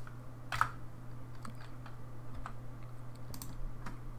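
A few scattered clicks of computer keyboard keys and a mouse being worked, over a steady low hum.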